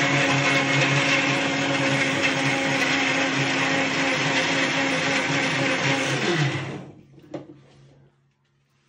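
Electric mixer grinder running at full speed, blending boiled chicken breast and water in its steel jar with a steady motor whine. It is switched off about six and a half seconds in and the motor winds down, dropping in pitch. A short knock follows about a second later.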